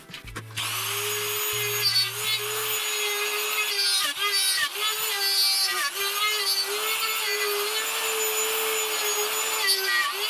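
Electric plunge router switched on about half a second in, then running at high speed with a steady high whine as it is swung around a circle-cutting jig to cut a round hole in a wooden board. Its pitch dips briefly a few times.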